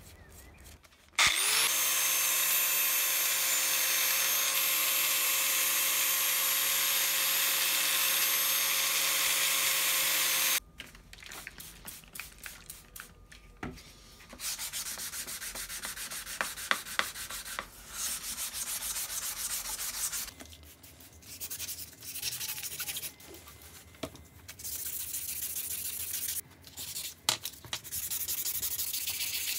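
An angle grinder runs steadily for about nine seconds, starting about a second in and cutting off abruptly. Then sandpaper rubs back and forth on the wet steel sickle blade in stretches of a few seconds with short pauses between.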